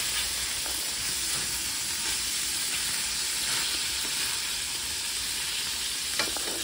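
Hamburger patties sizzling steadily in hot grease in a stainless steel frying pan, an even frying hiss. A few light knocks sound near the end.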